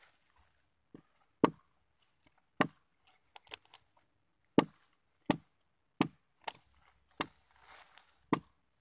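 Bolo knife chopping into a coconut palm trunk: about a dozen sharp strikes at uneven spacing, roughly one a second, with a quick run of three light blows a little past the three-second mark.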